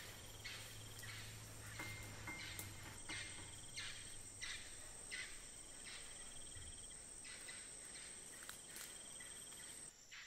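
Faint jungle insect ambience: a soft rasping call repeats roughly every half second to second over a steady high-pitched insect whine.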